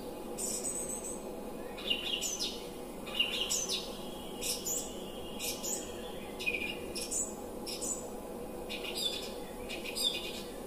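Songbirds chirping: a run of short, high chirps and quick falling whistles, coming in little clusters, over a steady low hum.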